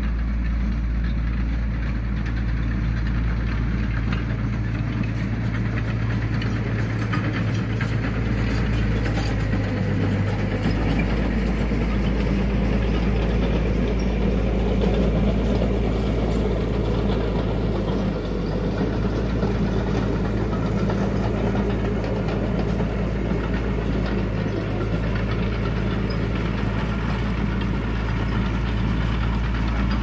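Heavy machinery's diesel engine running steadily, a deep even rumble, with faint scattered clanks.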